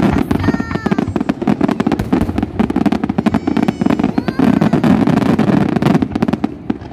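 Fireworks display: a rapid, dense barrage of bangs and crackles over a deep rumble, easing off near the end.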